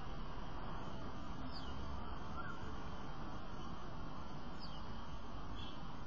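Steady outdoor background hum and hiss, with a few faint, short bird calls scattered through it.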